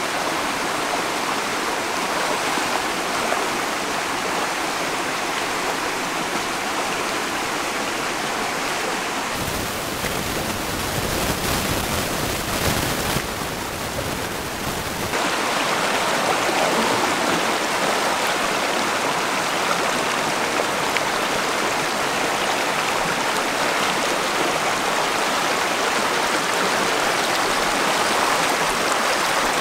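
Shallow rocky stream rushing steadily over stones. For several seconds near the middle this gives way to a deeper rumbling noise, then the rushing water returns a little louder.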